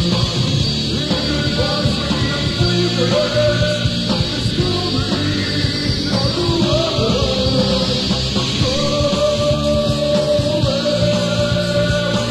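Rock band playing a loud punk rock song.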